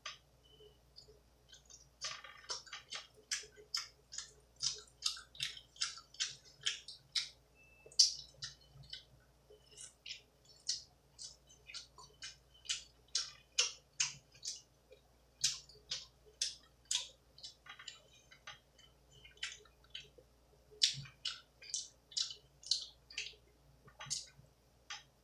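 Close-miked chewing of greasy pizza with wet mouth smacks: a run of sharp, clicking smacks, about two a second, starting about two seconds in.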